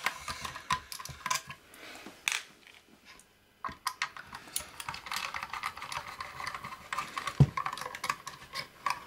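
Small screwdriver working a screw out of a metal bracket inside a metal equipment enclosure: a run of small clicks and scrapes of the tool and screw, with a pause about three seconds in and one dull knock near the end.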